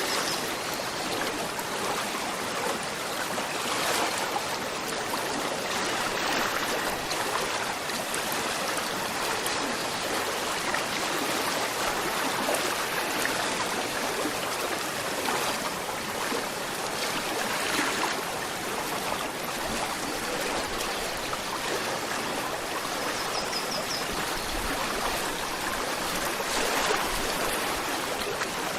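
Gentle river flowing steadily, water rushing and trickling over stones with small swells in level.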